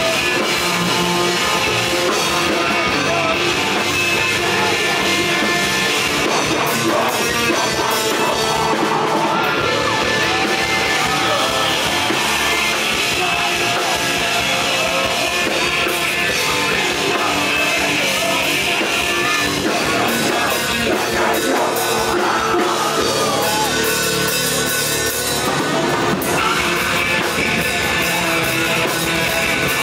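Live rock band playing: electric guitar, bass guitar and drum kit, with a singer's vocals over them.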